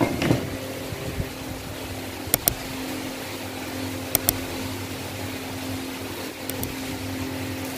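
Steady machine hum, with three pairs of short, sharp clicks spaced about two seconds apart.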